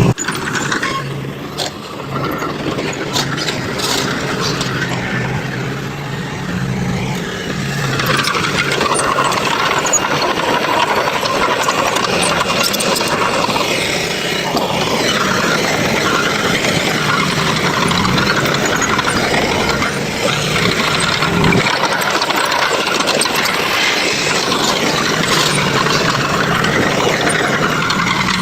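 Diesel engines of heavy construction machinery running steadily under work, a low engine hum plain in the first few seconds, then the noise grows louder and denser about eight seconds in.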